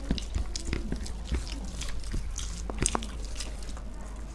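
Close-up eating sounds: irregular wet chewing, lip smacks and small mouth clicks from people eating rice with curry.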